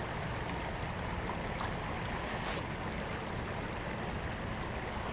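Steady rushing of a flowing stream, with wind rumbling on the microphone and a couple of faint clicks.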